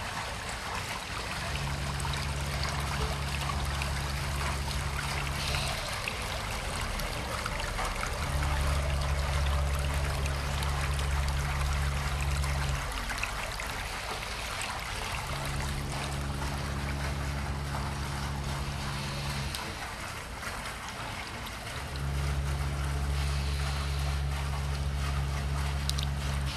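Water running across a concrete floor and spilling in a thin sheet over a step's edge: a steady trickling splash. Under it, a low hum starts and stops four times, each stretch lasting about four seconds.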